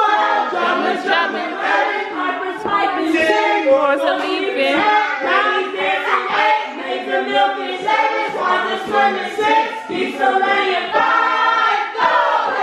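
A choir of several voices singing without instruments, one continuous passage.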